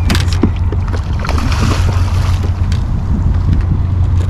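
A hooked salmon splashing and thrashing at the surface beside the boat as it is fought toward the landing net, with a burst of splashing about a second and a half in. Under it runs a steady low rumble of boat noise and wind on the microphone.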